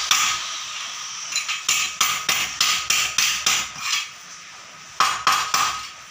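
Hammer blows tapping a bent aluminium plate to knock it flat, about three sharp metallic knocks a second. The knocks stop for about a second near the middle, then resume louder.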